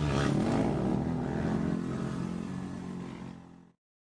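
Motocross ATV engine running under throttle with a steady pitch, growing fainter, then cutting off suddenly near the end.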